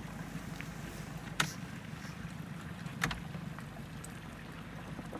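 Outboard motor of a small inflatable boat running steadily with a low hum. Two sharp clicks stand out, about one and a half seconds in and again about three seconds in.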